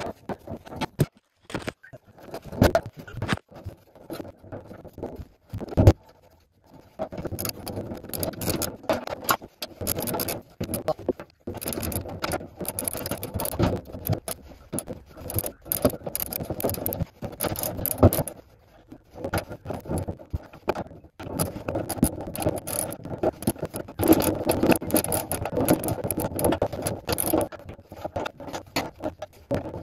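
Hand tools and metal parts scraping, clinking and knocking while the retaining straps are fitted and bolted down over a car's petrol tank. A few sharp knocks in the first several seconds, then denser, irregular scraping and clatter.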